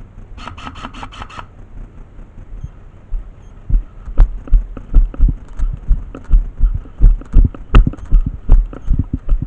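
Running footsteps thudding heavily on hard desert ground, about two to three steps a second, starting after a few seconds. Near the start comes a quick run of about seven rapid pitched pulses, lasting about a second.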